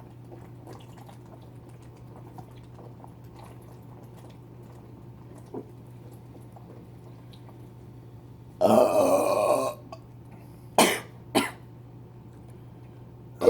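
A long, loud burp from a person who has just chugged a soda, lasting about a second and coming after several seconds without sound, followed by two short sharp bursts about half a second apart.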